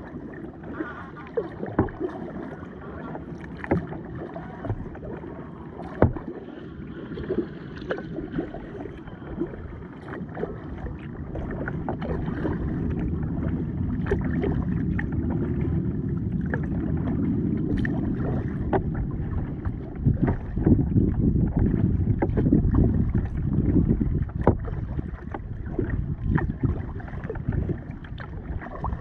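Kayak being paddled on a river: the paddle blades dip and splash with many short knocks, over a low rushing noise that grows louder about halfway through.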